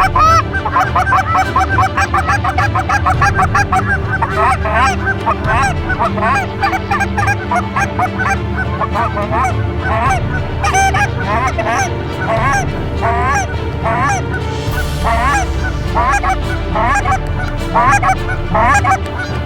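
Canada geese honking and clucking: a dense, rapid chatter of overlapping calls for the first few seconds, thinning to spaced single honks.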